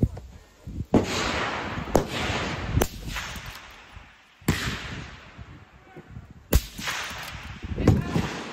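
A string of 6.5 Creedmoor bolt-action rifle shots, each a sharp crack followed by a long rolling echo, fired one to two seconds apart.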